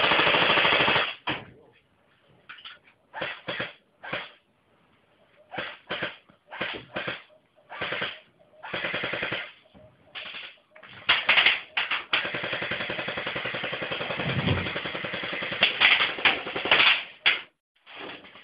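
Airsoft electric rifles firing on full auto: a run of short bursts, then a long unbroken stream of fire lasting about five seconds in the second half, with brief quiet gaps between bursts.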